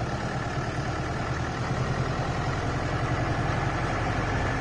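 Safari jeep's engine running steadily.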